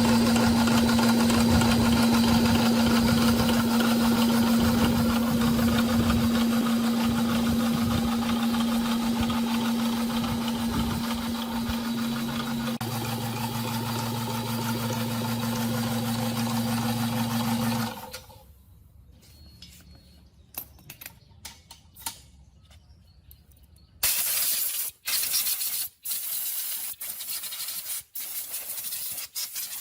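Electric motor running steadily with a strong even hum, stopping abruptly about two-thirds of the way in. After a few seconds of small clicks, a hissing spray sounds in runs broken by short pauses.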